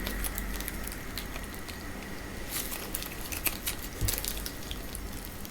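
Slime being handled up close: many small irregular crackling and popping clicks.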